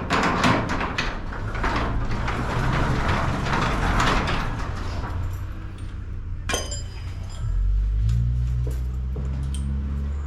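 Garage door rattling on its rollers and tracks with many clicks and knocks. About seven and a half seconds in, a steady low motor hum sets in.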